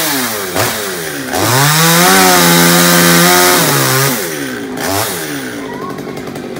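Small top-handle two-stroke chainsaw revving: a short blip about half a second in, then run up to full throttle and held for about two seconds before dropping back. Another short blip follows, then it settles to idle.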